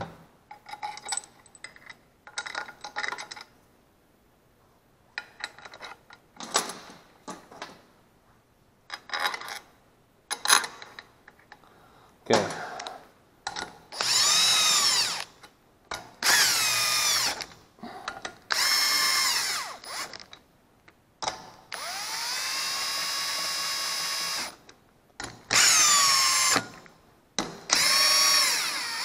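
Cordless drill with a socket driving the oil pan bolts of a Honda GXV160 engine home in about six short runs, its motor whine sliding in pitch as each bolt runs down and seats. The runs come in the second half; before them there are only light clinks of bolts and tools being handled.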